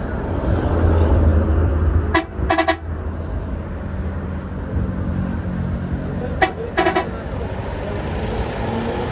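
A bus horn gives a short double toot about two seconds in and again about four seconds later, over the steady low rumble of a bus engine running close by.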